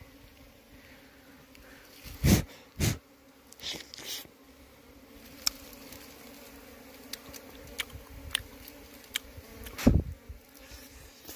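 Honeybees buzzing as a steady low hum around freshly cut honeycomb. Handling noises cut across it: two knocks a couple of seconds in, softer ones just after, and one more about ten seconds in.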